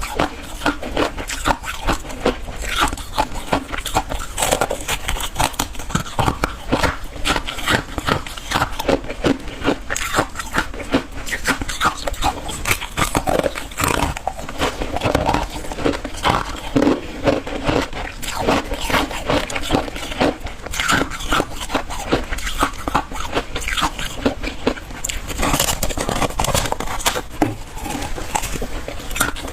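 Close-miked biting and chewing of hard refrozen freezer ice, a dense run of crisp crunches and cracks.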